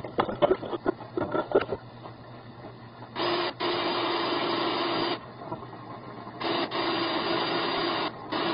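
Motor of a flex-shaft drain-cleaning machine running in bursts of about two seconds with a steady hum, started and stopped three times as it works at hardened grease lumps in a drain pipe. For the first two seconds a rapid, irregular run of knocks and clatter comes before it.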